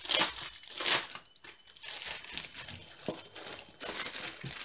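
Plastic wrap on a stretched canvas crinkling as it is handled. It is loudest in two brief bursts in the first second, then settles into softer rustling.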